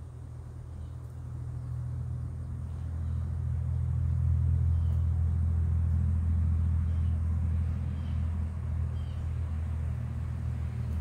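A low engine rumble that grows louder over the first few seconds, then eases off a little.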